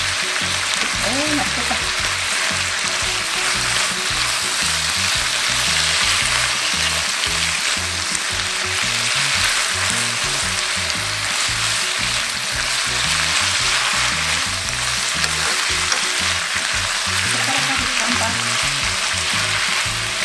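Thin-sliced pork belly stir-frying in a soy-sauce glaze in a frying pan, sizzling steadily while wooden chopsticks turn it over.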